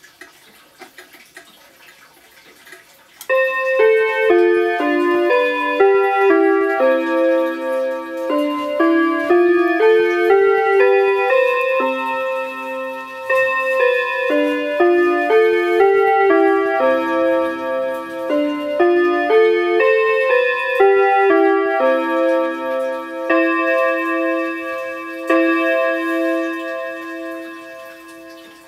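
Seiko quartz pendulum wall clock sounding its hour chime at twelve o'clock, starting about three seconds in: a melody of clear bell-like notes played one after another for about twenty seconds, then a lower repeated note ringing on and fading near the end.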